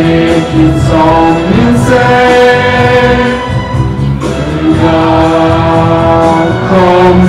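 A group of voices singing a song together, in phrases of long held notes.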